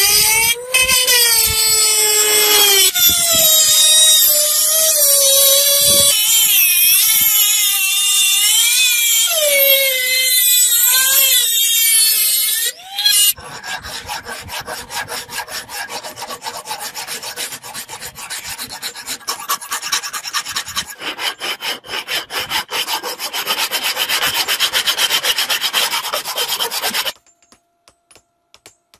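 A handheld rotary tool with a small grinding stone runs against a steel blade, its whine rising and falling in pitch as it bears on the metal. About thirteen seconds in it stops, and a hand file scrapes along the blade in quick, even, repeated strokes until shortly before the end.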